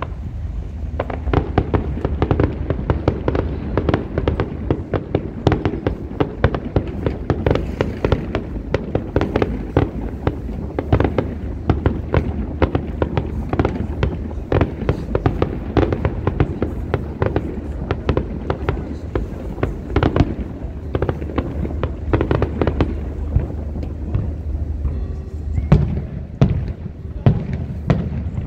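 Fireworks display: shells bursting in quick succession, a dense run of bangs and crackles several a second, starting about a second in, over a steady low rumble.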